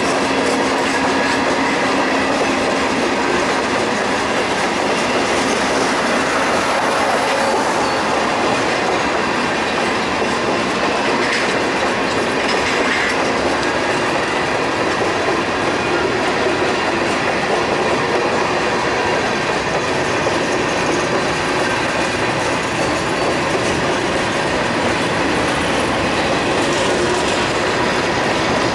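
Freight train cars rolling past at a steady speed: tank cars, a boxcar and a centerbeam flatcar, their steel wheels running on the rails at an even, loud level.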